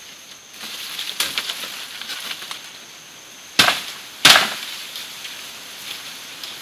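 Rustling and small snaps in undergrowth, then two sharp chops into wood about two-thirds of a second apart, the loudest sounds here.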